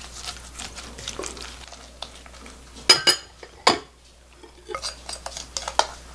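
Wooden spoon stirring and scraping green-onion kimchi in a glass bowl, with a few sharp knocks against the glass about three seconds in. Then quick light clicks and scrapes as the spoon pushes the kimchi out of the tilted bowl into a small glass dish.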